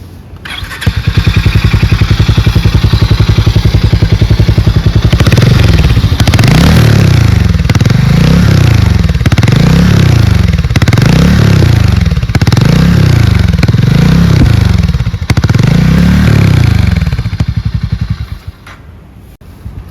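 Harley-Davidson X440's single-cylinder engine running with a fast even beat, then revved up and let fall about seven times in a row before dying away near the end.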